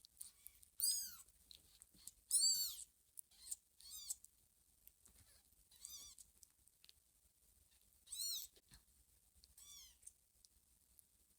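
A kitten meowing: six short, high-pitched mews, each rising and falling in pitch, a second or two apart.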